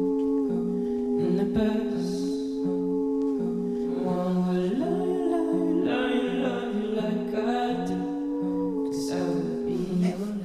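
Soundtrack music: a slow song with a held vocal melody stepping between long notes over a repeating low accompaniment.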